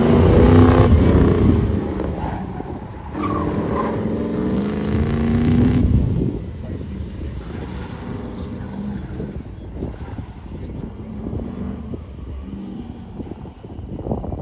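A car engine accelerating hard under load, with a brief lift about three seconds in, then pulling up in pitch again for about three seconds before easing off to quieter, rougher running.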